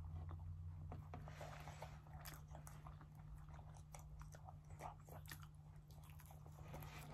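Faint chewing and biting of pepperoni pizza, with many soft short mouth clicks and crunches over a steady low hum.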